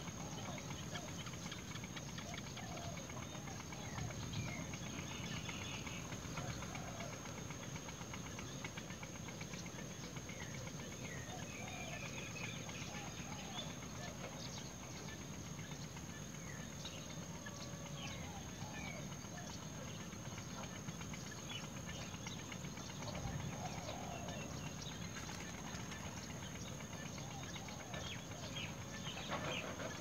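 Outdoor ambience of scattered short bird chirps and calls over a steady hiss, with a constant high-pitched whine throughout.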